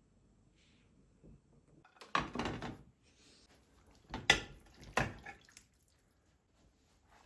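Household handling sounds: a rushing, scraping noise lasting about a second, then two sharp knocks less than a second apart.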